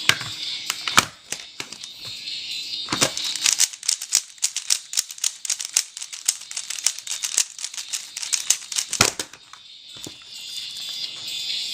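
Dayan LunHui speedcube being turned fast through finger-trick algorithms: a rapid run of sharp plastic clicks as the layers snap round, densest in the middle.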